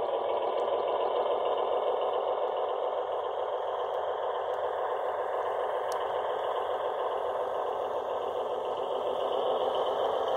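HO scale Proto Gulf, Mobile & Ohio EMD E7A model locomotives with QSI sound decoders passing close by, their onboard speakers playing a steady diesel engine sound over the rattle of metal wheels on the track.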